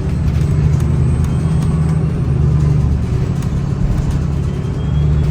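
Cummins B6.7 inline-six diesel of a Gillig hybrid bus with BAE hybrid drive, running steadily as heard from inside the cabin, with a low, even drone and faint light rattles.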